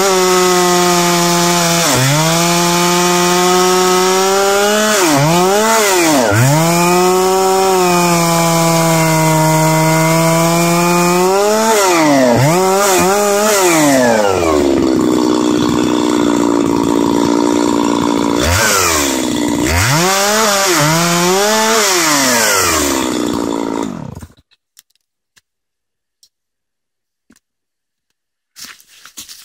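Two-stroke chainsaw on a chainsaw mill running at high revs, ripping along a log; its pitch sags several times under load and climbs back. About 24 seconds in the engine cuts off.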